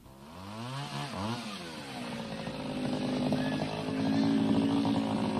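Chainsaw revving, its pitch sweeping up and down several times, then held at a steady high speed that grows louder.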